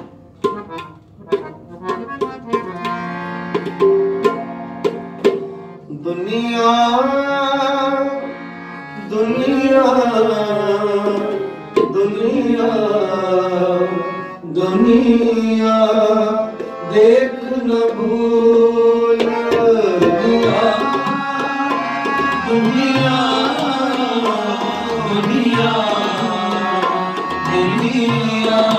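Devotional singing accompanied by tabla. About six seconds of tabla strokes over steady held tones, then a solo voice sings a long, gliding, ornamented line over the drumming.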